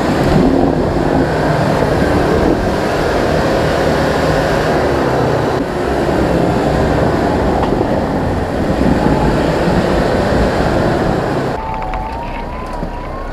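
Off-road 4x4's engine running hard under load, with a steady noisy rush over it. Near the end the sound changes abruptly: the rush drops away and a wavering whine comes in.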